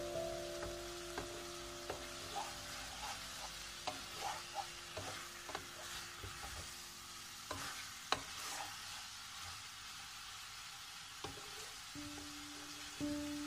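Metal spoon clinking against a ceramic bowl in small irregular clicks as water is poured in from a mug and stirred into a powder, over a steady hiss.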